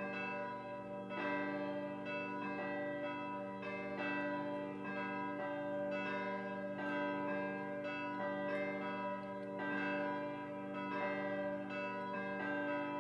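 Schulmerich Basilican Mark III DSP digital carillon playing its Sunday mass call: three electronically reproduced swinging church bells pealing. The strikes overlap in an uneven rhythm about every half second, and each one keeps ringing.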